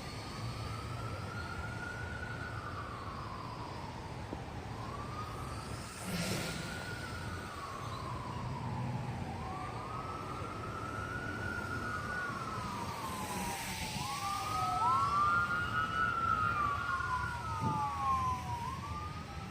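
Emergency vehicle siren wailing, each cycle rising quickly then falling slowly, about every four to five seconds; from about halfway through a second siren wail overlaps it. Wind gusts buffet the microphone underneath.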